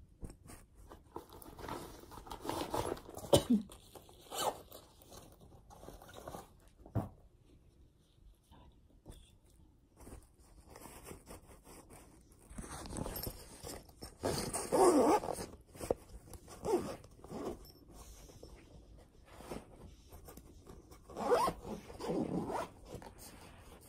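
A fabric zipper pulled in several short runs, among the rustling of clothes being handled and packed into a packing cube.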